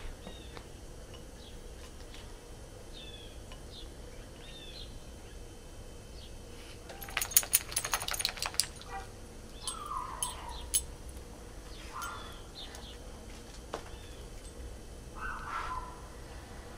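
Small birds chirping and calling outdoors, with short high notes in the first half and a few lower calls later. About halfway there is a quick, loud run of sharp crunching clicks lasting about a second and a half.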